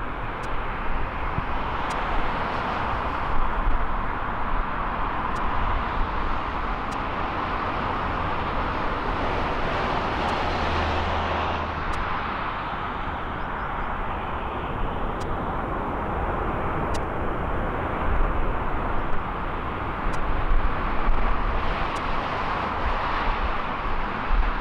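Jet airliner's engines at takeoff power: a steady rushing roar that swells and eases a little.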